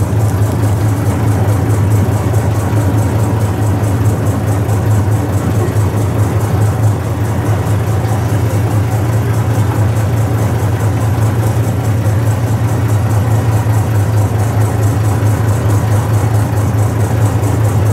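Boat engine running steadily at constant speed: a loud, unbroken low drone heard from aboard the boat.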